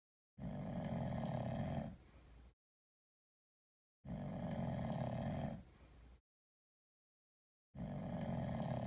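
Sleeping cat snoring: three long snores about every four seconds, each a loud breath of about a second and a half that trails into a softer end, with complete silence between them.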